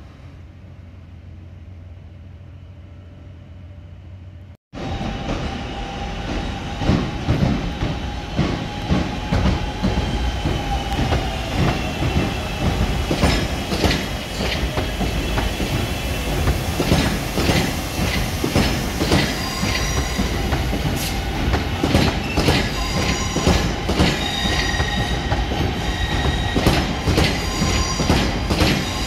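A quiet, steady low hum inside a Class 323 electric train, which cuts off about five seconds in. It gives way to a louder passenger train moving past at a station platform: its wheels click repeatedly over rail joints and points, with high squealing tones from the wheels that come and go.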